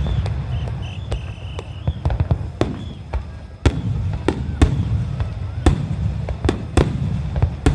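Star mine aerial firework shells bursting in quick succession: sharp bangs about twice a second at irregular spacing over a continuous low rumble.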